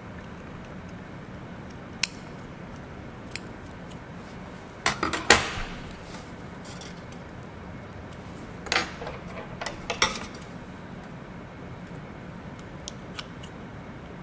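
Fine dissecting scissors snipping away the carapace of a narrow-clawed crayfish, with metal instruments clicking: scattered sharp snips, the loudest in a quick cluster about five seconds in and another around nine to ten seconds.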